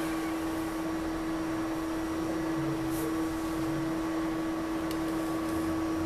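Quiet room tone with a steady low-pitched hum, and a faint click about halfway through.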